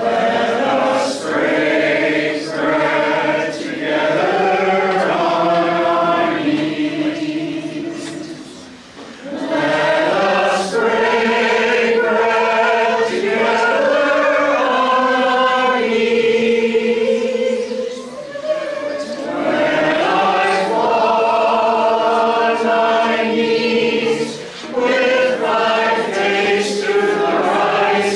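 A group of voices singing a hymn together in long held phrases, with brief pauses between phrases about 9, 18 and 25 seconds in.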